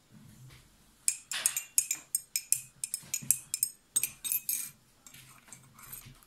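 Metal cutlery clinking against plates and cups at a meal: a quick, irregular run of sharp clinks with short ringing, starting about a second in and dying away near five seconds in.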